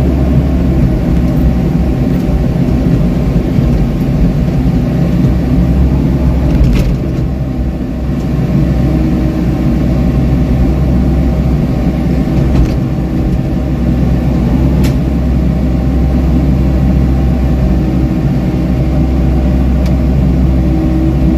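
Komatsu PC78US mini excavator's four-cylinder diesel engine running steadily under working load with a deep hum, heard from the operator's seat while the bucket digs into the soil. A few short sharp clicks sound over it.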